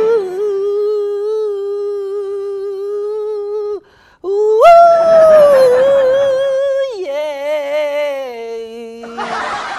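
A person humming long, held notes with a slight waver. A steady note lasts nearly four seconds and breaks off, then a louder, higher note follows after a short pause and slides down to a lower one that is held near the end.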